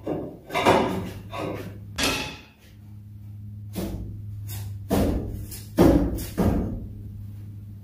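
Heavy metal clunks and thuds, about six of them spread irregularly over several seconds, from a steel pry bar levering and knocking against parts under the truck's drivetrain. A steady low hum runs underneath.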